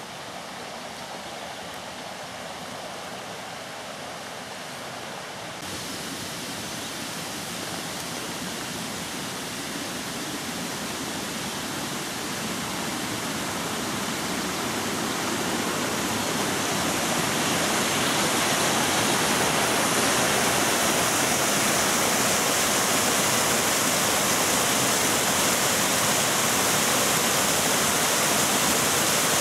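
A woodland stream rushing over rocks in a small waterfall. The rush grows steadily louder over the first eighteen seconds or so, then holds steady.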